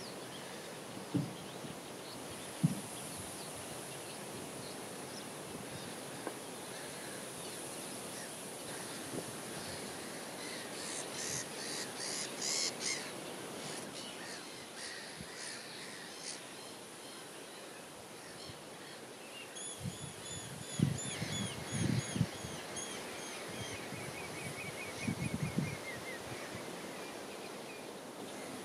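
Outdoor ambience with steady hiss and wild birds calling: a quick burst of calls about halfway through, then a run of repeated call notes and a short trill later on. A few brief low thumps come near the start and again in the second half.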